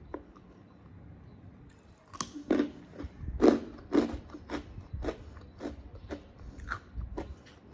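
Close-miked eating sounds of someone biting and chewing sate Madura: quiet at first, then from about two seconds in a quick, uneven run of sharp chewing clicks and smacks, loudest a little after the middle.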